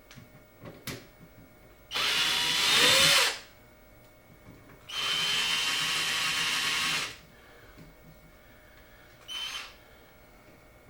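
A power driver spinning out the screws that hold an electrical outlet in its wall box: a run of about a second and a half, a run of about two seconds, and a short burst near the end.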